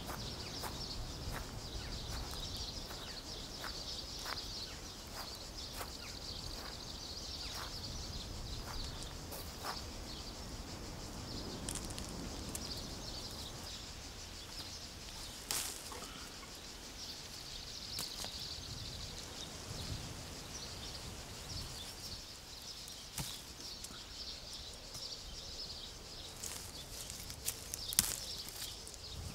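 Countryside ambience of an almond grove: a steady high insect drone, with scattered light rustles and clicks of leaves and branches being handled, and a sharp click about halfway through and another near the end.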